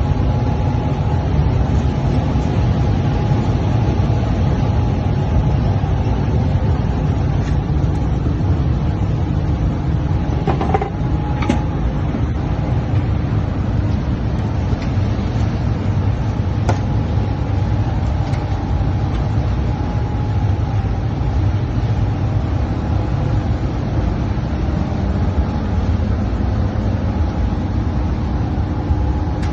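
Steady low machine hum with a faint constant whine over it, broken by a few light clicks and knocks about ten to seventeen seconds in.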